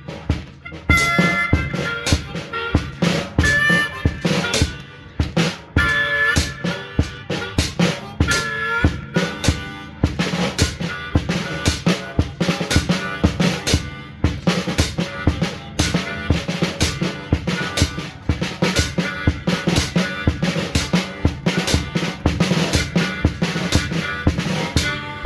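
Blues jam: a steady drum-kit beat with kick, snare and rimshots, with a Hohner Piedmont Blues harmonica played through a Green Bullet microphone, sounding short bent notes over roughly the first ten seconds; after that the drums carry on mostly alone.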